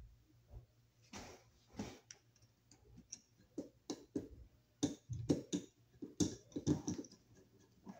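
A flat-blade hand screwdriver turning the mounting screws of a receptacle into a steel electrical box: irregular clicks and scraping of metal on metal, busier and louder in the second half.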